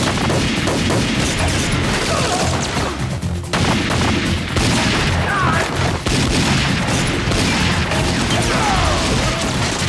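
Rapid, sustained gunfire in a TV shootout, with shots striking the cars, under a dramatic music score.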